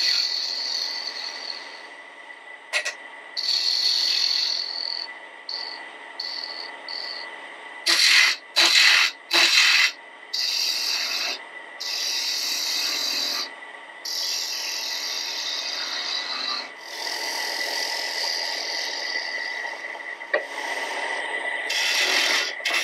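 Woodturning gouge cutting a small piece of wood spinning on a lathe: a scraping hiss that comes and goes as the tool is pressed in and lifted off, with several short sharp cuts about eight to ten seconds in. A faint steady whine runs underneath.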